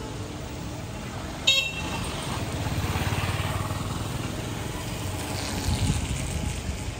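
A vehicle horn gives one short, high toot about a second and a half in. A low rumble from a passing vehicle follows.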